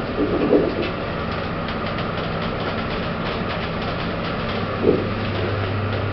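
Lift with a Kone EcoDisc gearless machine: a thud about half a second in as the doors finish shutting, then the car running with a steady hum and a few low steady tones, and a second knock near the end.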